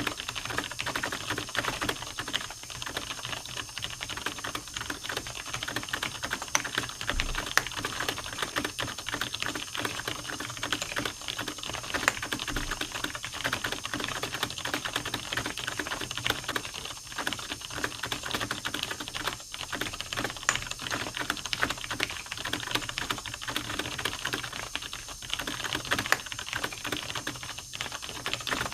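Computer keyboard being typed on quickly and without pause: a dense, steady stream of keystroke clicks, many each second.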